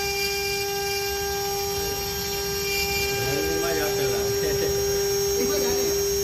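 SIE-6040 CNC engraving machine's spindle running with a steady high whine, a single held tone with overtones, as its fine bit engraves lettering into a soft-metal plate.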